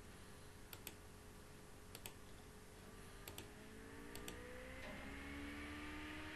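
Computer mouse button clicking four times, about a second apart, each click a quick double tick of press and release. A faint hum rises slowly in pitch from about halfway through.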